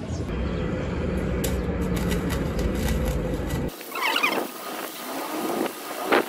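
A steady low hum and rumble for the first few seconds, then a sudden cut to the hiss of a MIG welding arc, with two short rising squeals.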